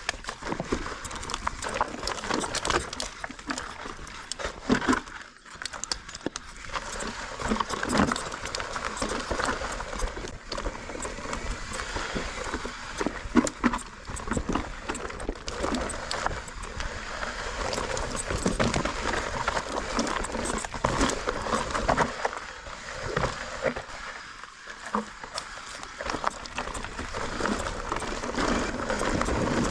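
Mountain bike rattling over a rocky trail: an irregular clatter of knocks from the chain, frame and tyres striking rocks over a steady rush of noise.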